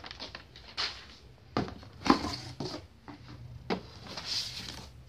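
Hands handling things in a cardboard printer box: rustling of paper and plastic with a few sharp knocks and taps, the loudest about two seconds in.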